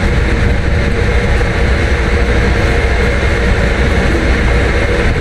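Steady, loud low drone of a running engine with a steady hum over it, unchanging throughout.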